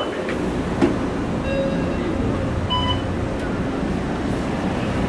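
Inside a San Francisco Muni Breda LRV3 light-rail car: a steady low rumble from the car, with a few short electronic beeps, one near the start and another about three seconds in.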